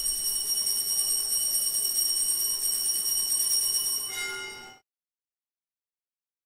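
Altar bells ringing steadily for the elevation of the host at the consecration, a bright, sustained jingling of several high tones that cuts off abruptly a little under five seconds in.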